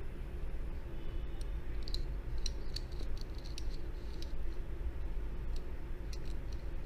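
Light, irregular clicks and taps as fingers handle and turn over a small die-cast toy car, over a steady low hum.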